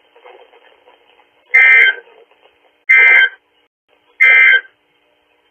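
NOAA Weather Radio's SAME digital alert data for an Emergency Alert System required weekly test, heard over the radio: three short bursts of warbling two-tone data, each about half a second long and about 1.3 seconds apart.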